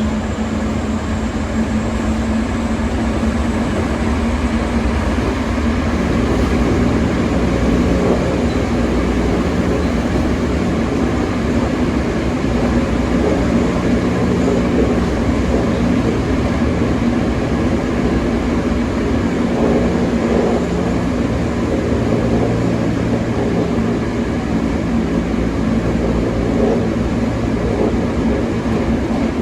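Interior running noise of a Toei 5300 series commuter train travelling at speed: a steady roar of wheels and running gear on the rails, with a steady low hum throughout.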